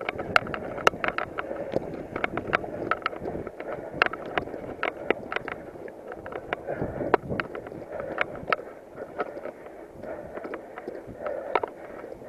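Mountain bike rattling over a bumpy dirt trail: irregular sharp clicks and knocks, several a second, over a steady rush of tyre and wind noise. The knocks come thickest in the first half and thin out later.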